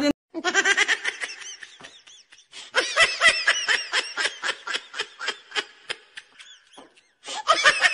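High-pitched laughter in rapid ha-ha pulses, several a second, in a long spell from about half a second in to about six seconds, then starting again near the end.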